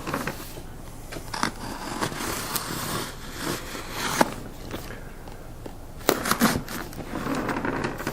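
Cardboard packaging being handled and opened by hand: scattered scrapes, rustles and small clicks, with a busier burst of handling about six seconds in.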